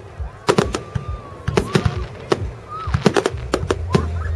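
Aerial fireworks bursting in quick succession: many sharp bangs and crackles, bunched together about half a second, one and a half seconds, three seconds and four seconds in. A low steady drone comes in near the end.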